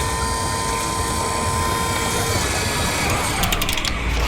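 A vehicle motor running steadily, a dense rumbling noise with a held whining tone that cuts off about two seconds in. A short rapid run of clicks comes near the end.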